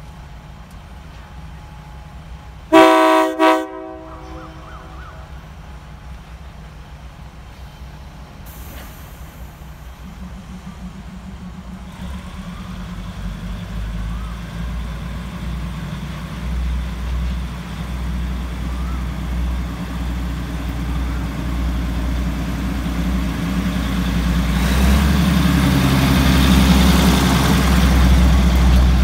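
State Railway of Thailand diesel railcar train sounding two short horn blasts about three seconds in, then pulling away from the station. Its diesel engines and running gear grow steadily louder as the coaches pass close by.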